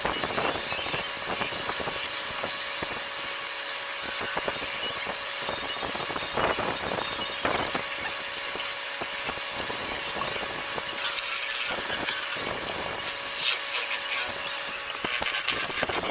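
A small power tool working wood, running steadily with a thin high motor whine. A run of rapid strokes comes near the end.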